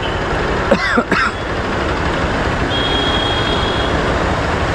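Motorcycle engine idling under steady city traffic noise, picked up by a chest-mounted GoPro's built-in microphone. A few short gliding squeaks come about a second in, and a thin high steady tone sounds for about a second near the middle.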